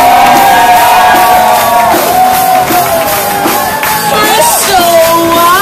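A woman singing loudly through a microphone, holding long notes that slide in pitch, with the cast and audience clapping and whooping along.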